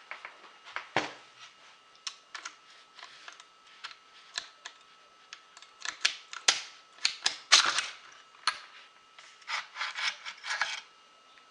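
A knife cutting and scraping at a plastic zip tie on an AR-15 upper receiver, with handling of the metal parts: a string of irregular clicks and scrapes, busiest in the second half.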